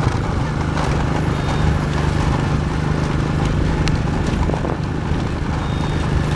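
Steady running noise of a ride along a road, with a low hum and a few sharp knocks.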